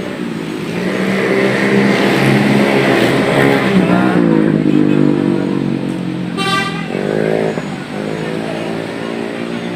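A large diesel bus engine running, its pitch rising and falling as it works, with a short horn toot about six and a half seconds in.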